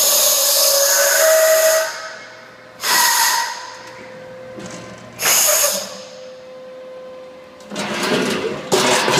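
Pneumatic clamps on an automated seam welder's part fixture exhausting compressed air as they release the box: a long hiss of about two seconds, then two short hisses, and a rougher, longer burst of air noise near the end.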